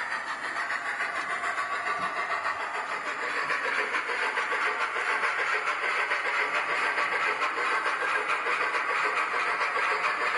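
Hornby P2 model steam locomotive running under DCC with a Soundtraxx ECO-21PNEM UK steam sound decoder: rapid, even exhaust chuffs from the model's small speaker, mixed with mechanical running noise. It grows louder about three seconds in.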